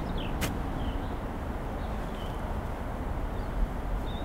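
Open-air ambience with a steady low rumble and a few faint, short bird chirps. One sharp click comes about half a second in.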